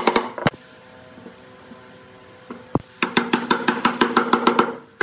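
Rapid runs of sharp wooden knocks, about ten a second: one right at the start, a single knock just after, and a longer run from about three seconds in. This is wood being struck while a round rung is knocked into the holes of a chair's rails.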